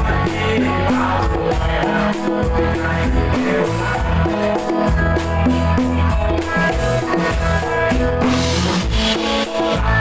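Live band music, loud and steady, with a drum kit keeping a regular beat of bass drum and snare under pitched instruments; an instrumental passage without singing.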